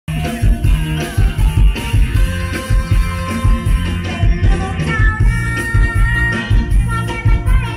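Mor lam band music starting suddenly, with a heavy, steady bass beat; a held melody line that bends in pitch comes in about five seconds in.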